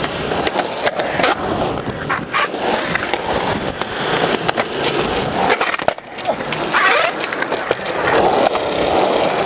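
Skateboard wheels rolling over a concrete skatepark bowl in a continuous rumble, with several sharp clacks of the board and trucks knocking against the concrete.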